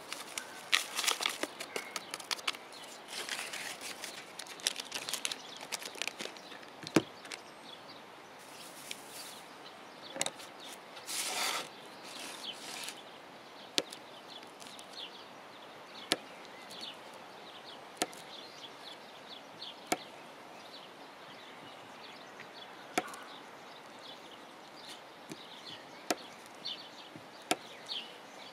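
Rustling and shaking of a spice packet sprinkled over a bowl of tomato salad during the first few seconds, then a kitchen knife dicing a block of feta cheese on a thin plastic cutting board: sharp single knocks of the blade on the board every two or three seconds.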